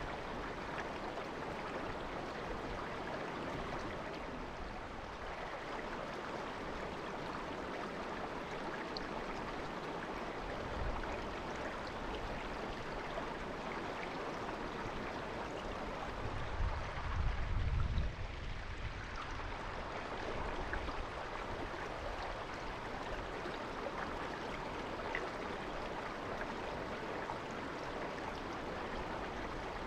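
Naka River babbling steadily over its stones, an even rushing sound. About two-thirds of the way in, a brief low rumble swells for a couple of seconds.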